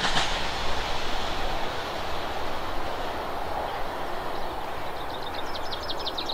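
Class 43 HST diesel power cars going away after passing, a steady rushing noise that slowly dies down. A high rapid trill comes in near the end.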